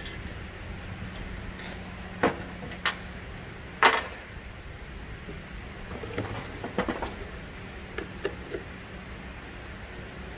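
Sharp knocks and clanks of objects being handled: three louder ones about two to four seconds in, the last the loudest, then a scatter of lighter taps, over a steady low hum.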